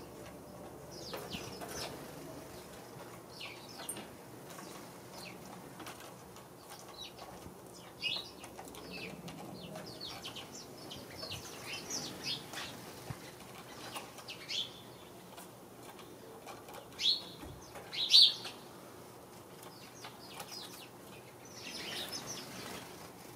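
A flock of house sparrows chirping: many short chirps overlapping throughout, a few louder ones about three-quarters of the way through. Wings flutter as birds fly in and out of the tree.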